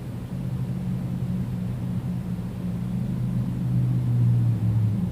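Emerson 1895 series ceiling fan coasting down after being switched off, giving a low steady hum that swells about four seconds in; its long spin-down is indicative of superior bearings.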